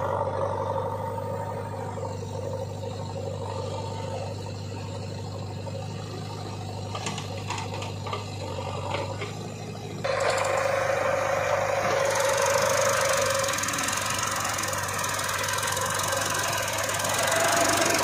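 Diesel engines of a JCB 3DX backhoe loader and a Massey Ferguson 7250 DI tractor running steadily while the loader works the earth, with a few light clanks. About ten seconds in the sound turns louder and harsher, with a squeal held for a few seconds.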